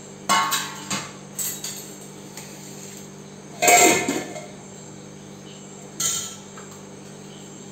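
Stainless steel plates, pots and a ladle clinking and clattering on a kitchen counter: a few sharp metallic knocks with a brief ring, the loudest about four seconds in. A steady low hum runs underneath.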